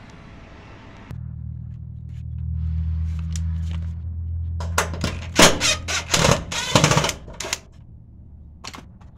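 Cordless impact driver working a screw on the electric range's sheet-metal terminal-block cover. The motor runs with a low hum for a few seconds, then clatters in a loud run of rapid impacts for about three seconds. A short burst follows near the end.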